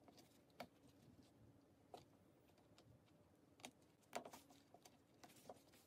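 Near silence, with a handful of faint clicks and rustles from hands handling the cord and satin fabric under the sewing machine's presser foot.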